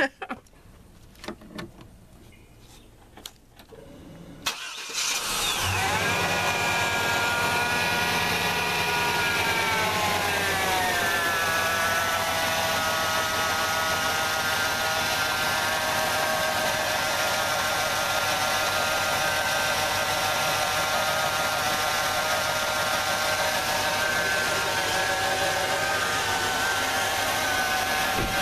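1996 Chevy Tahoe engine, freshly wired to dual batteries, starts about four and a half seconds in after a few faint clicks. It runs at a fast idle with a whine that falls in pitch about ten seconds in, then settles to a steady idle.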